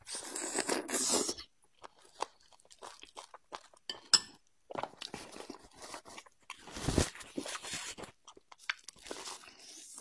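Close-miked eating: a person biting into and chewing red-braised beef bone marrow, with a loud bite in the first second and then irregular wet mouth clicks. A heavier thump comes about seven seconds in.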